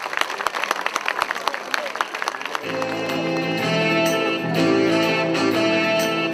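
Audience applause fading out. About two and a half seconds in, a mixed choir of women's and men's voices starts singing sustained chords.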